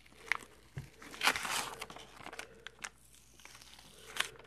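Green tape being peeled off the dried glue on the back of a perfboard circuit board: a crinkling, tearing sound, loudest from about one to two seconds in, with scattered small clicks.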